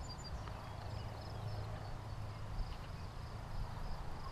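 Faint insects chirping in a high, broken trill over a steady low rumble.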